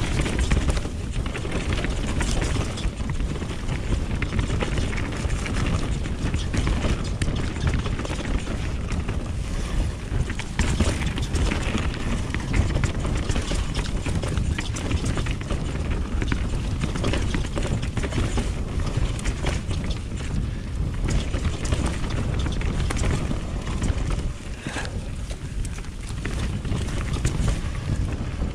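Wind rushing over the microphone and mountain-bike tyres rumbling over a dirt trail, with steady rattling and knocks from the bike over bumps.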